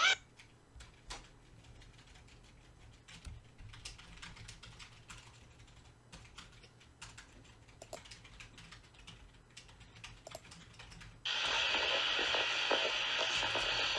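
Faint, irregular clicks like keyboard typing. About 11 seconds in, a much louder steady rushing noise starts abruptly.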